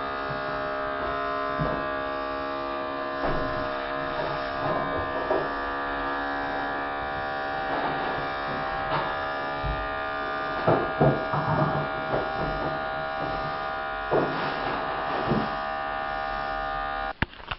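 Handheld electric fabric shaver (lint remover) buzzing steadily as it runs, then switching off suddenly near the end.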